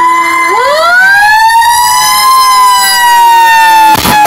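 Fire truck sirens wailing loudly: one siren tone holds high and slowly sags while a second siren winds up steeply from low about half a second in. A brief break in the sound comes near the end.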